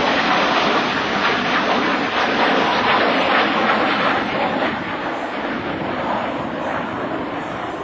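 An F/A-18F Super Hornet and an F4U Corsair flying past in formation, heard mostly as a steady jet roar that slowly fades over the second half as the pair draws away.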